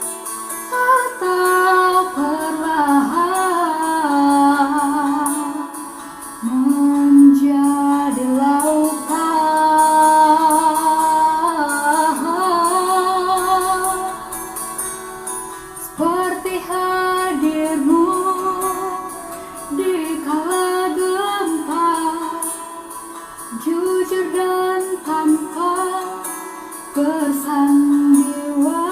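A solo voice singing a slow, sustained melody with a wavering vibrato on held notes, over acoustic guitar accompaniment, in phrases with short breaks between them.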